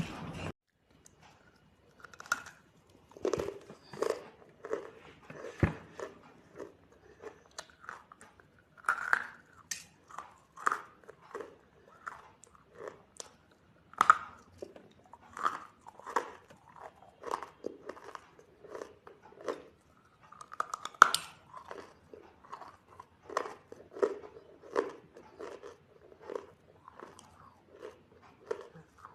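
A person biting and chewing something crunchy: a string of short, irregular crunches, roughly one or two a second, beginning about two seconds in.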